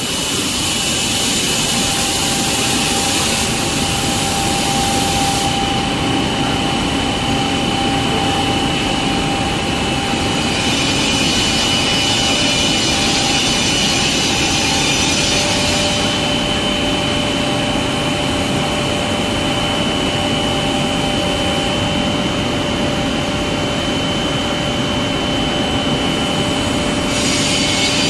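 Automatic glass loading machine running in a glass factory: a steady machine noise with a high whine, and a hiss that swells and fades in long stretches.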